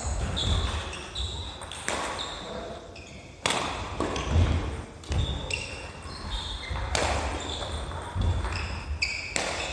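Badminton singles rally: rackets strike the shuttlecock four times, a second and a half to three and a half seconds apart. Between the hits, sneakers squeak and feet thud on the wooden gym floor.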